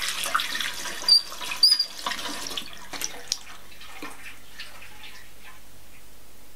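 Tap water running into a sink, with two short squeaks about a second in as the tap is turned off; the flow then dies away into a few drips.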